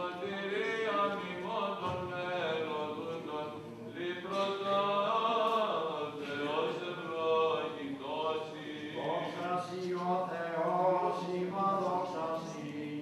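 Byzantine chant sung by a male cantor at the lectern in a Greek Orthodox church, a winding melismatic line with a steady low note held beneath it.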